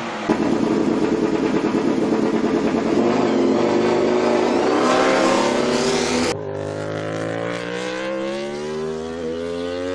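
MotoGP racing motorcycle engine at high revs, its pitch climbing as the bike accelerates. About six seconds in the sound cuts abruptly to another stretch of a bike pulling hard, its note rising steadily.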